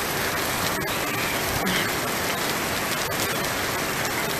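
Heavy rain pouring down steadily on a paved platform, a dense even hiss of drops with no let-up.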